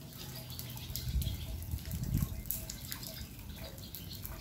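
Floodwater sloshing and dripping, with low rumbling pushes of water about one and two seconds in.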